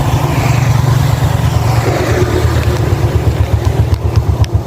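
Yamaha Vega New's small single-cylinder four-stroke engine running. Its beat eases off about four seconds in into separate, slower pulses, settling toward idle.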